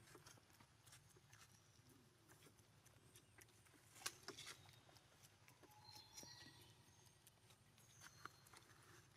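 Near silence: faint background with scattered small clicks and taps, one sharper click about four seconds in.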